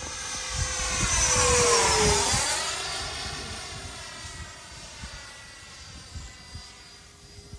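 Freewing F-18 90mm electric-ducted-fan RC jet flying past: the fan whine builds to its loudest about two seconds in, drops in pitch as the jet goes by, then fades as it flies away.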